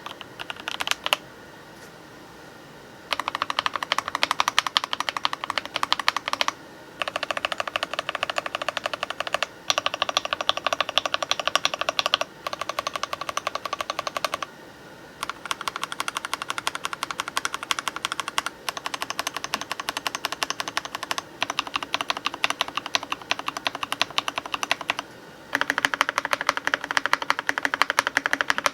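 Keychron K6 aluminum-frame mechanical keyboard with foam dampening, lubed Box Cream linear switches and MT3-profile keycaps being typed on fast, in long runs of rapid keystrokes with short pauses between them. Near the start a few separate keystrokes come before a pause of about two seconds.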